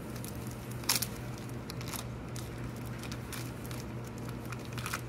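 Thin plastic bag crinkling in the hands as it is peeled off a small part, in short scattered crackles with a sharper one about a second in, over a steady low hum.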